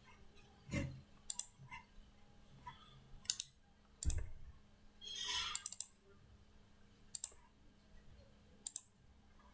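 Computer mouse buttons clicking: scattered single clicks and quick double clicks with pauses between them. A brief soft hiss comes about five seconds in.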